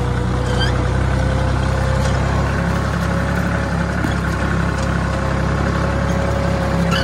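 Universal 445 tractor's diesel engine running steadily as the tractor drives along with a mounted fertilizer spreader working, with a steady whine alongside the engine note.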